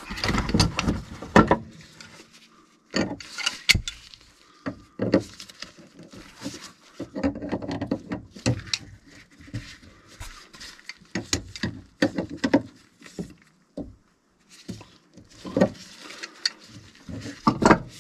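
Handling noise of a tool on plumbing fittings: a string of irregular knocks, clicks and scrapes as gloved hands work at PEX pipe and a valve fitting.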